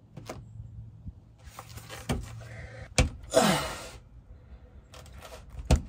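Screwdrivers prying a rubber Sumo Spring into its mount on a van's rear axle: scattered clicks and knocks of metal tools, a short falling groan just after the third second, and a loud knock near the end.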